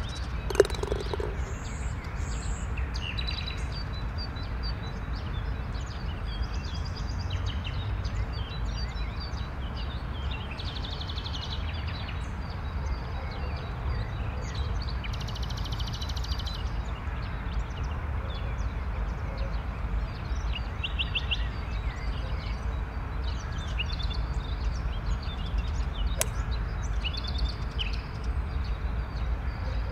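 Outdoor ambience: assorted small birds chirping on and off over a steady low rumble, with one sharp click about half a second in.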